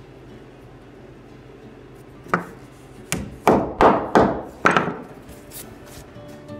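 A hammer tapping wooden bungs into the counterbored screw holes of a boat's wooden deck planking. About six sharp wooden knocks come in quick succession starting about two seconds in, with a lighter tap after them.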